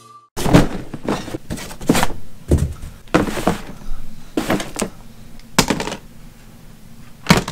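A series of irregular thuds and knocks, about a dozen, each short and sharp, spaced half a second to a second apart, with a small room's echo.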